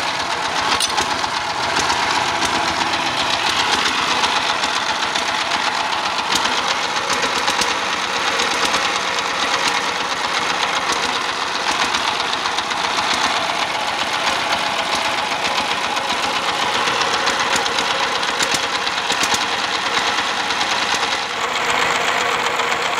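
S-195 single-cylinder horizontal diesel engine running steadily soon after a cold start, with a rapid, even clatter. It is blowing white smoke out of its crankcase breather and lacks power; the mechanic traces this to a torn main bearing and a worn, loose cylinder liner.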